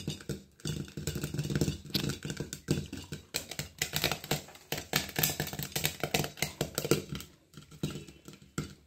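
Sorghum (jowar) grains popping rapidly in a pan under a glass lid: a dense crackle of small pops that thins out about seven seconds in.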